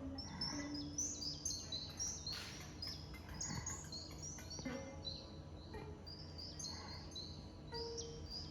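Soundscape of birdsong: many short high chirps, several falling in pitch, over a steady low hum, with a few brief low tones.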